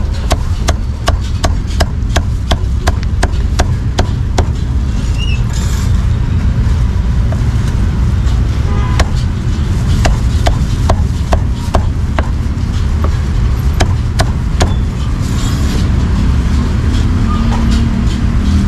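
Heavy cleaver chopping cooked meat on a thick round wooden chopping block: a steady run of sharp knocks, about three a second at first and a little sparser later, over a steady low rumble.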